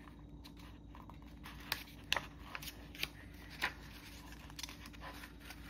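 A paperback picture book's pages being handled and turned: a string of light, sharp paper clicks and rustles.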